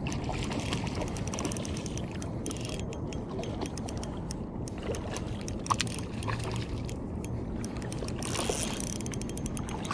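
Spinning fishing reel being cranked in fast fine ticks while a hooked trout is reeled in, over a steady rumble of water and wind noise.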